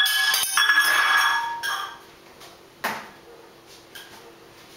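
A metal kitchen utensil is dropped and clatters, with several quick metallic hits that ring on and fade out about two seconds in. A single knock follows about a second later.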